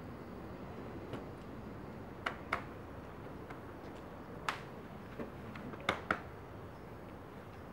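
A few scattered short, sharp clicks and taps over a faint steady outdoor background. Near the end come two quick slaps close together: pats on the back during a hug.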